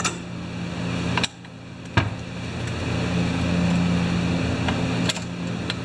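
A steady machine hum, like a shop fan or heater, with a few sharp metallic clicks of a nut driver and screwdriver working screws on the chainsaw's metal housing.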